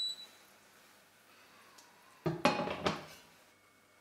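Metal kitchenware knocking: a few sharp clanks of pots and utensils against the stainless-steel stockpot about two and a half to three seconds in.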